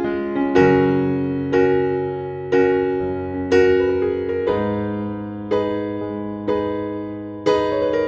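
Background music: slow piano chords, a new one struck about once a second and each left to ring and fade.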